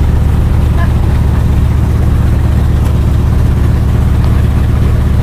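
Float plane's engine and propeller droning steadily, heard from inside the cabin.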